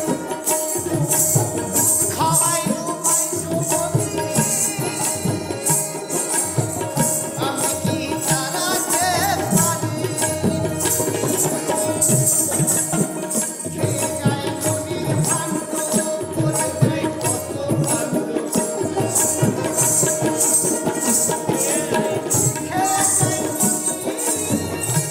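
Live Baul folk music from a small ensemble: tabla and khol drums keeping a steady beat under harmonium and plucked dotara, with a bright jingle of small percussion throughout.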